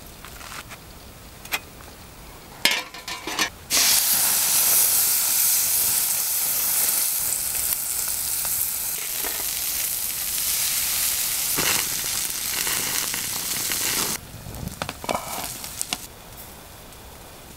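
Rack of lamb sizzling loudly on a hot perforated grill pan over embers. The sizzle starts suddenly about four seconds in and cuts off a few seconds before the end. Scattered knocks and clicks of handling come before and after it.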